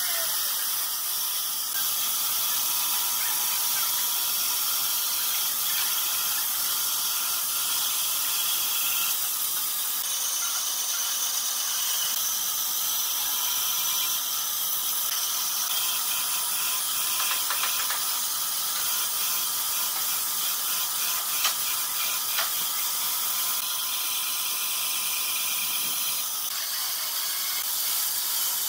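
Bandsaw blade cutting a curve through a thick wooden board, a steady hiss, with a couple of brief clicks about three quarters of the way through.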